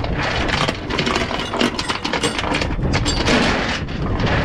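Steel tie-down chain clinking and rattling as it is pulled across a metal trailer deck: a run of sharp metallic clanks over a steady low rumble.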